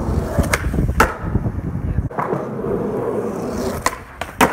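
Skateboard wheels rolling on concrete with scattered clacks. Near the end the board pops, flips and lands with a loud, sharp double clack.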